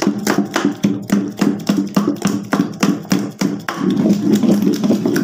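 Wooden stick beating thick semolina and urad dal batter in a large steel bowl, a rapid run of wet slaps and knocks about four a second. The batter is being whipped to get air into it so the bara will rise.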